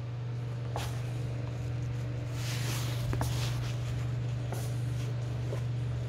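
A steady low hum, with soft rustling a few times and a couple of faint clicks about three seconds in, as a pet genet moves about and nibbles at a hand.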